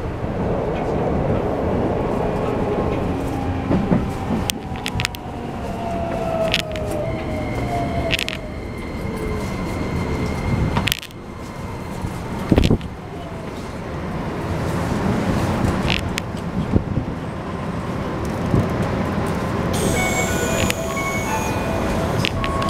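Keikyu New 1000 series electric train heard from inside the car as it brakes into a station: the Toyo VVVF inverter and traction motor whine falls slowly in pitch over steady wheel-on-rail rumble, with scattered clicks and knocks from the track.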